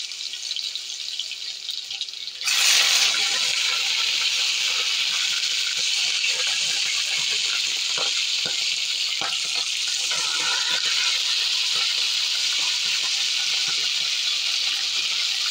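Minced garlic and ginger sizzling gently in hot oil; about two and a half seconds in, chunks of boiled beef go into the pan and the frying jumps to a loud, steady sizzle with scattered pops and crackles.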